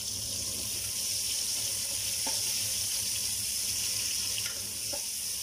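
Chopped garlic and onions sizzling in hot oil in a pot, a steady hiss, with a couple of light taps of a plastic spatula against the pot as they are stirred.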